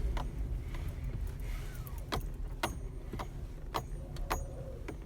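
Mercedes E350 4Matic S211's steering squeaking: about six short, sharp squeaks and creaks spread over a few seconds, over the car's low engine rumble.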